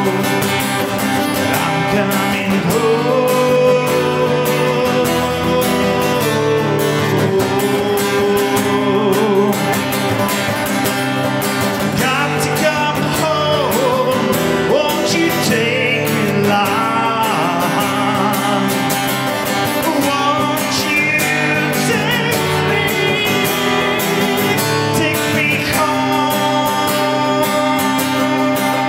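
Live acoustic guitar music: steady strumming with a wavering melody line over it through the middle.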